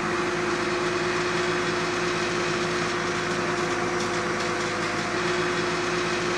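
Tow truck's engine idling steadily.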